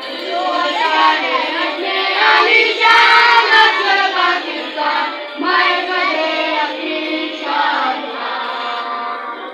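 Children's voices singing a song over music.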